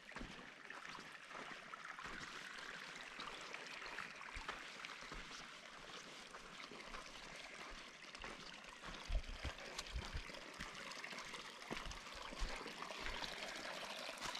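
Small shallow creek trickling steadily over rocks and gravel, faint. A few dull low thumps come about two-thirds of the way through.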